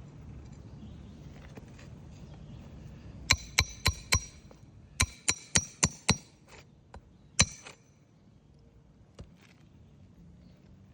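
Hammer striking metal on an asphalt shingle roof, most likely driving roofing nails: sharp, ringing strikes in two quick runs of four and five, then one more loud blow.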